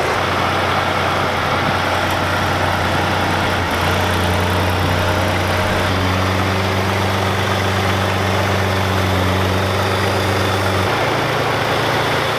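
Chevrolet S10 pickup's bare engine, with no hood, running steadily as the stripped truck is moved. Its speed rises a little about four and six seconds in and drops back near the end.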